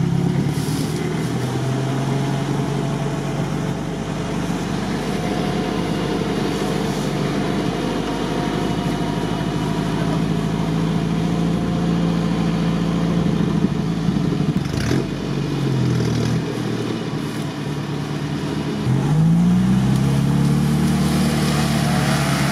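Off-road vehicle engine running steadily under load while being recovered from swamp mud. It drops back briefly, then revs up again about nineteen seconds in, with a sharp click around fifteen seconds in.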